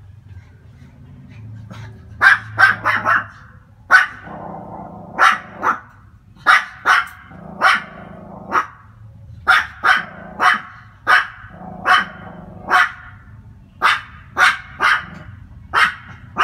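Pomeranian barking over and over: about twenty short, sharp, high barks, often in quick runs of two or three, starting about two seconds in.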